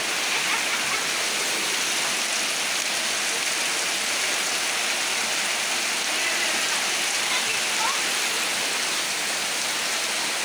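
Heavy rain pouring down steadily onto wet bare ground, a dense, even hiss of splashing drops.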